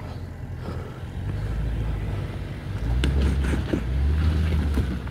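Range Rover Sport engine running at low revs as the SUV crawls over a loose rock trail, its note swelling about three seconds in. A few sharp clicks and crunches of stones come at the same time.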